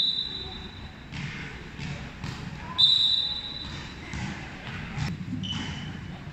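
Volleyballs being struck and bouncing in a large echoing sports hall, with a sharp smack about three seconds in followed by a short, fading high ringing. Players' voices run underneath.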